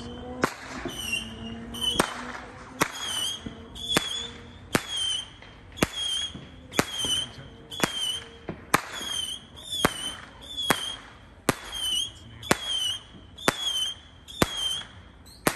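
Fireworks going off in a steady series, about one sharp crack a second, each followed by a short high whistle.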